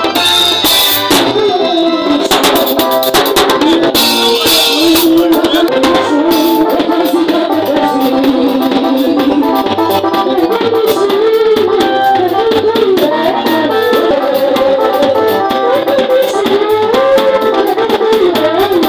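Live band music: electric bass guitar, drum kit and keyboard playing together, with a melody line that slides up and down in pitch over a steady cymbal beat.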